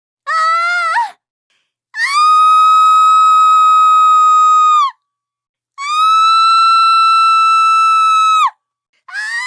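A person's voice screaming: a short cry, then two long high-pitched screams held at a steady pitch for about three seconds each, and a short falling scream beginning near the end.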